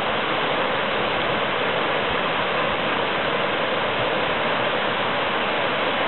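Waterfall pouring down a rock face into a pool: a steady rush of falling water.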